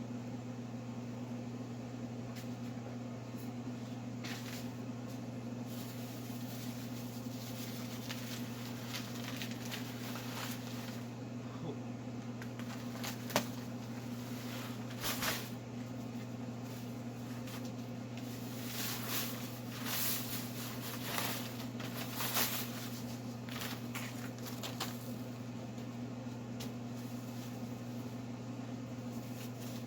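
Bags of cement being emptied into a concrete form: scattered rustling and pouring noises, and one sharp knock about 13 seconds in, over a steady low hum.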